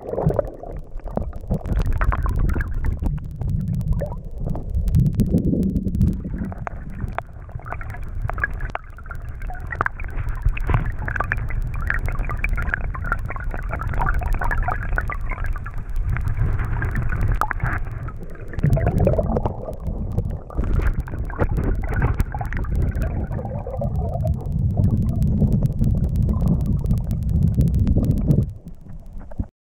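Muffled, low rumbling and gurgling of stream water heard through an action camera's microphone held underwater, with water moving against the camera housing. It cuts off suddenly near the end.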